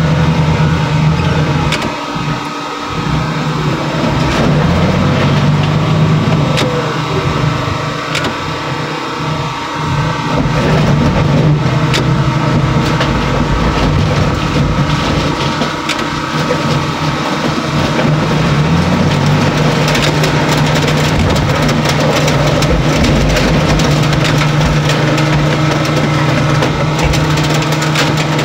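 Heavy machinery engine running steadily, its pitch shifting now and then and dipping briefly twice, with a few light clanks.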